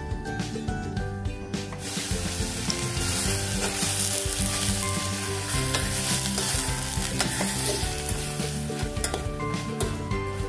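Apple slices cooking in butter and sugar in a pot over high heat, sizzling steadily; the sizzle swells about two seconds in.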